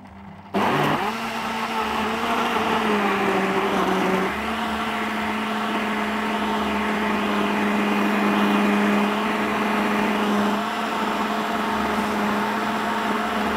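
Countertop blender motor switched on about half a second in, running steadily as it blends a thick banana and peanut-butter smoothie; its hum sags slightly in pitch over the first few seconds under the load, then holds steady.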